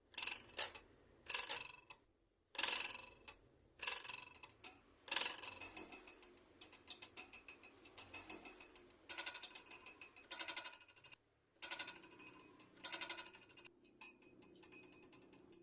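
Fast mechanical clicking in repeated short bursts, each starting loud and fading away, with quieter scattered ticks between them.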